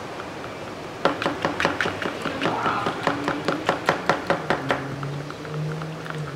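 A quick run of sharp taps or clicks, about three a second, starting about a second in and stopping at about four and a half seconds, followed by a faint low steady hum.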